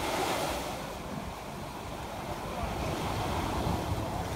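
Wind buffeting the microphone over the steady wash of small surf.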